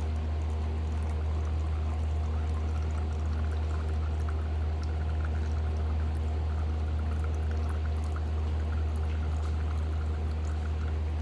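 Engine oil pouring and trickling from the Yamaha WR450F's drain hole into a drain pan, a fine patter of drips that picks up about two seconds in, over a steady low hum.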